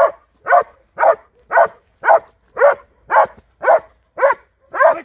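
Young Belgian Malinois barking steadily at a hidden helper in a training blind, a bark-and-hold: ten loud, evenly spaced barks at about two a second.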